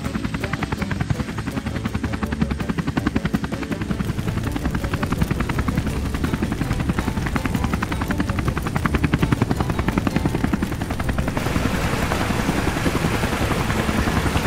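Helicopter rotor sound, a fast steady chopping of the blades. A hiss joins it about eleven seconds in.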